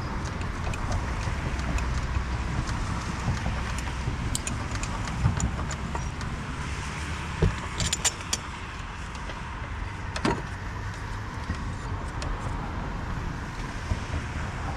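Steady low rumble of background noise with scattered light clicks and metallic clinks, the busiest cluster about eight seconds in and a sharp click a little after ten seconds.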